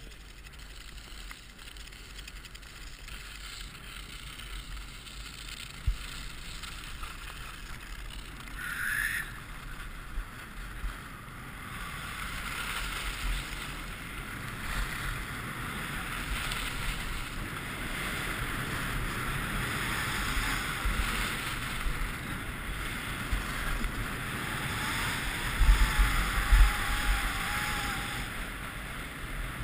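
Alpine skis sliding and scraping over groomed snow at speed, with wind buffeting the camera microphone; the noise grows steadily louder as the skier picks up speed, with stronger wind gusts near the end.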